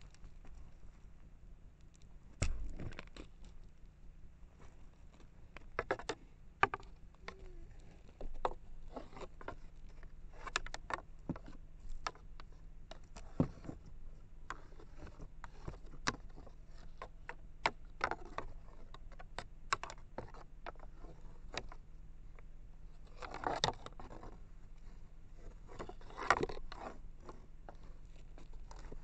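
Scattered irregular clicks and scrapes right at a trail camera's microphone, as something brushes against the camera, with two longer rustling scrapes near the end.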